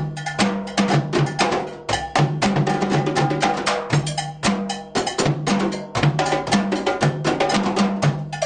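Drum ensemble playing a fast, steady rhythm: many sharp drum strokes over a bell pattern, with short low pitched bass-drum notes repeating in a set pattern.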